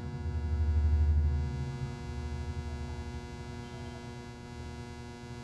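Steady low electrical hum, swelling in the first two seconds and then easing off.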